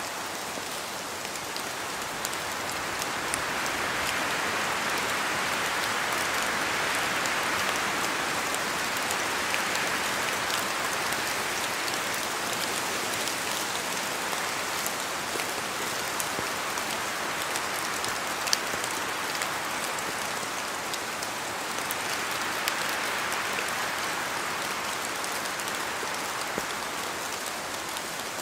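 Steady rain falling in a spruce forest, many individual drops ticking on branches and the forest floor, with wind rushing through the trees that swells and fades twice.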